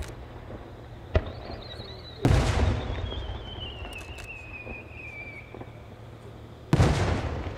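Aerial fireworks: a sharp launch crack about a second in, then a long whistle from a rising shell, falling slowly in pitch. Shell bursts boom twice, a little over two seconds in and near the end, each trailing off in echo.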